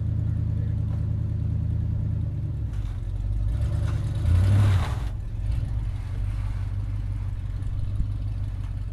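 A vehicle's engine running steadily, with a louder surge for about a second and a half near the middle before settling back to a rougher hum.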